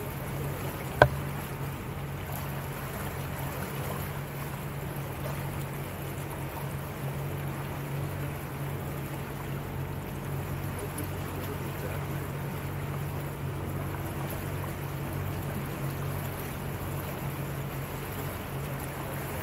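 Small motorboat's engine running steadily at low cruising speed, with water noise along the hull. A single sharp click sounds about a second in.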